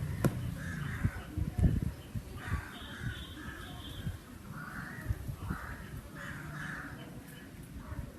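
Crows cawing over and over, short calls following one another through the whole stretch. Low thumps in the first couple of seconds are the loudest moments.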